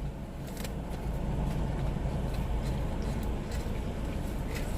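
Steady low car-engine rumble heard from inside a parked car's cabin, with a few faint clicks over it.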